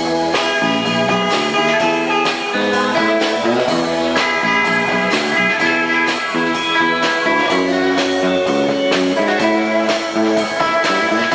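A band playing music, with guitar to the fore.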